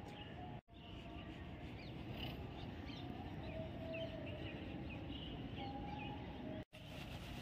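Birds chirping in short, scattered calls over a steady outdoor background hiss. The sound cuts out completely for an instant twice.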